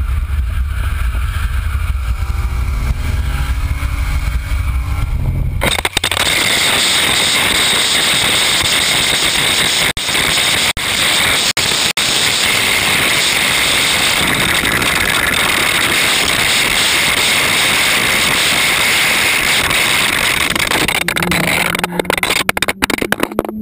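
Low rush of wind and road noise from a camera on the front bumper of a Nissan Skyline GT-R R33 driven flat out. About six seconds in it switches abruptly to a loud, steady scraping as the torn-off bumper and camera are dragged along the asphalt under the car, throwing sparks. Near the end the scraping breaks up into knocks as the camera tumbles loose.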